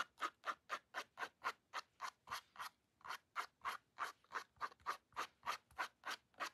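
Edge of a plastic credit card scraping quick strokes into wet watercolour paint on paper, about four short scrapes a second, with a brief pause a little before the middle.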